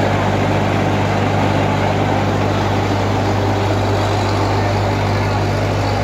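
Electric motor of a large industrial drum washing machine running, turning the drum through a belt and large pulley: a steady, even hum.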